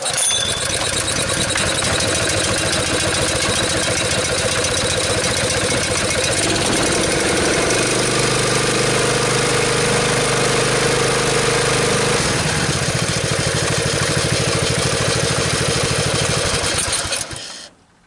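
Honda GX single-cylinder engine on a tree baler, pull-started and catching at once, then running steadily for about seventeen seconds before cutting out near the end. It runs on a new spark plug that replaced a fouled one.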